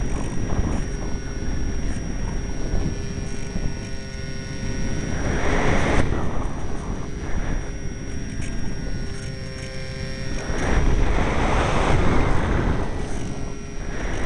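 Strong wind buffeting the microphone: a constant rumbling rush that swells in gusts about five seconds in and again near eleven seconds.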